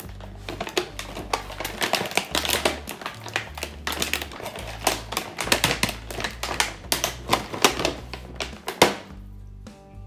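Clear plastic packaging crinkling and crackling as candles are pulled out of plastic bags and sleeves: a dense run of sharp crackles, with a loud one near the end.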